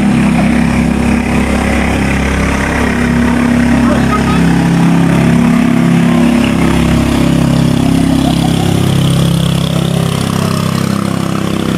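An engine running steadily at a low, even note, picking up a little about four seconds in.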